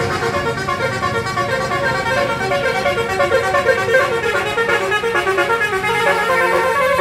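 Bus 'telolet' multi-tone air horn playing a quick tune of short notes that jump between pitches.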